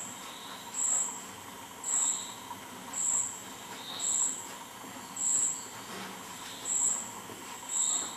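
A cricket chirping: short high chirps repeating about once a second.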